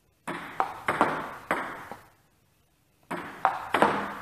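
Table tennis ball clicking sharply off bat, table and rebound board in two quick runs of several hits each, a rally of serve and return, with a short echo after each click.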